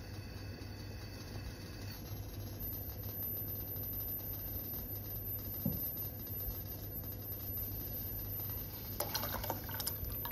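Red wine in a saucepan coming up to the boil, bubbling lightly over a steady background rush. About nine seconds in, orange juice is poured into the hot wine with a burst of splashing and crackling.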